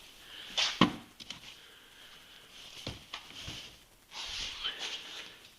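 Snowmobile aftermuffler being twisted out past the chain case bolt: a sharp clunk about a second in, a lighter knock near three seconds, then a rasping scrape about a second later.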